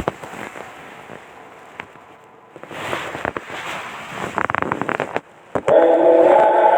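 Crackly, hissy noise of an old recording in a pause of Quran recitation, with scattered clicks and a louder stretch in the middle; about five and a half seconds in, the reciter's voice comes back in on a long held chanted note.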